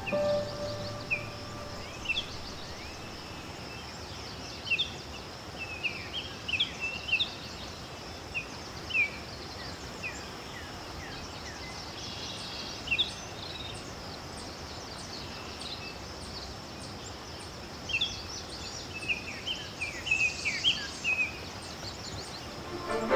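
Small birds calling in short chirps that glide up and down, scattered through, over a steady outdoor hiss and a faint high steady buzz.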